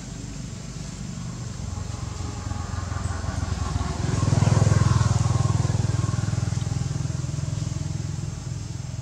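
A motor vehicle engine passing by: a low, steady hum that grows louder to a peak about four and a half seconds in, then slowly fades.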